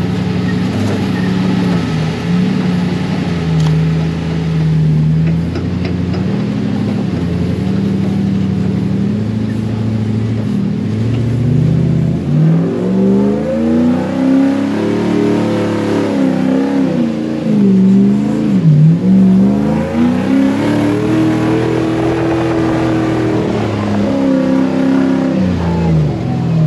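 Off-road buggy's engine running under way, holding a steady pitch at first, then revving up and down repeatedly through the second half.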